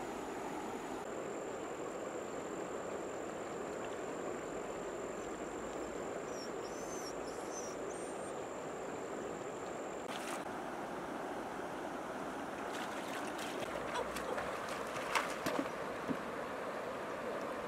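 Shallow river water running over stones, a steady babbling. A few short splashes and knocks come in near the end.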